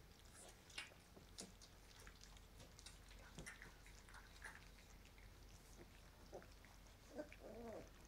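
Very quiet puppy sounds: faint scattered small clicks and smacks, then one short whine that rises and falls, about seven seconds in.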